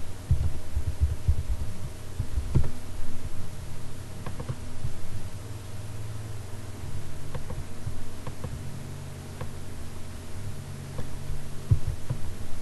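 Low steady hum with irregular dull thumps and scattered faint clicks, picked up by the computer's own microphone while the keyboard and mouse are in use.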